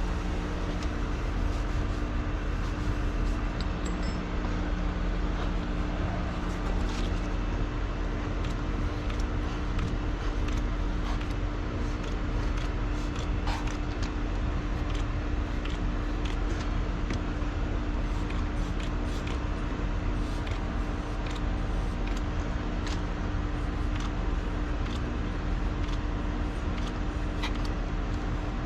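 A steady mechanical hum from a running motor or engine, with scattered light clicks and taps.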